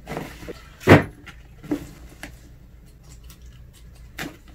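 Handling of a canvas messenger bag: a phone is dropped in and lands with a thump about a second in, followed by a few lighter clicks and rustles of the bag and its metal-tipped straps.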